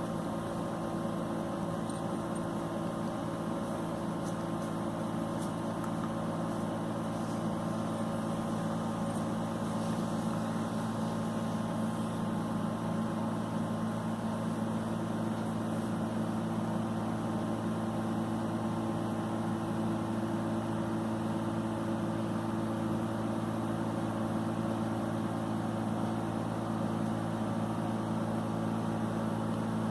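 A steady, low machine hum made of several even tones, with no coughing.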